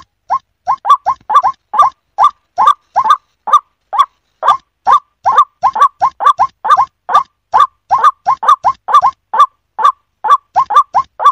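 White-breasted waterhen (ruak-ruak) calling: a steady, fast run of short call notes, about three to four a second, many of them in close pairs.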